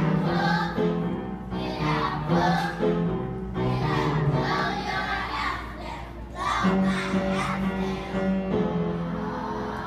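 Young children singing a song together over piano accompaniment, with changing chords held under the voices.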